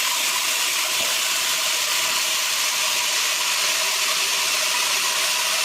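Electric horizontal band sawmill running: a steady, even hiss with a faint machine hum beneath it.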